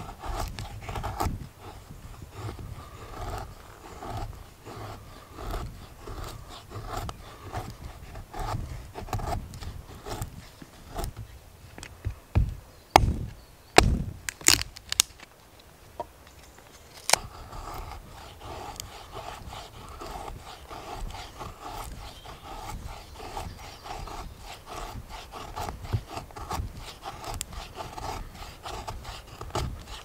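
Knife blade shaving thin curls down a wooden stick to make feather sticks, in repeated scraping strokes about one a second. The strokes stop for a few seconds around the middle, where there are several sharp knocks and clicks, then resume.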